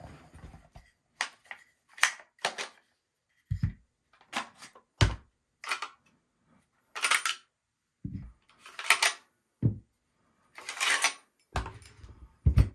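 FN SCAR-16S rifle being field-stripped by hand: irregular metallic clicks and clacks with short scraping slides as the trigger group and stock come off and the recoil spring assembly and bolt carrier are drawn out of the receiver. A few heavier knocks come as parts are set down.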